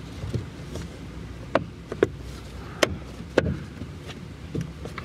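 A few sharp clicks and taps, irregularly spaced, from plastic interior trim on a car's rear parcel shelf being handled by hand, over a steady low hum.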